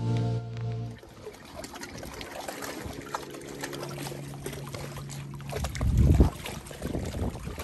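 Background music ends about a second in. Then small lake waves lap and trickle against an aluminum canoe hull beside a rock shore, with a brief low thump about six seconds in.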